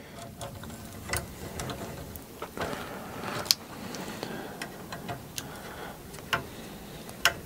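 Scattered small clicks and rattles of hand work: a 3 mm screw and a tool being handled and worked while the extruder is fastened to the 3D printer's carriage. The clicks come irregularly, several seconds apart, over a low rustle of handling.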